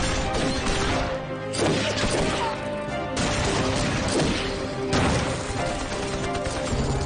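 Action-film score playing under a fight's sound effects: several crashing, smashing impacts a second or two apart.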